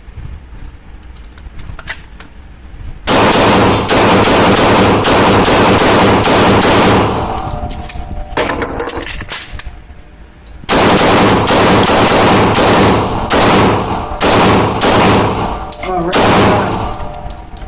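Semi-automatic pistol fired rapidly, with reverberating cracks: two strings of shots, the first starting about three seconds in, the second after a pause of about three seconds. A few fainter shots come before them.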